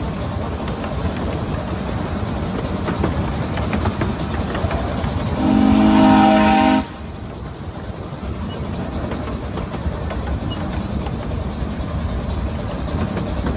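Ride-on miniature railway train running steadily along the track, with one blast of the steam locomotive's whistle about five and a half seconds in. The whistle sounds several tones at once, lasts about a second and a half and cuts off sharply.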